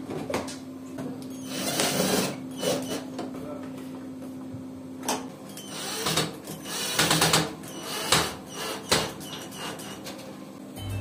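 Cordless drill/driver running in several short bursts, driving screws that fix a stacking-kit bracket to the dryer. Plastic clicks and knocks from the bracket being handled come between the bursts.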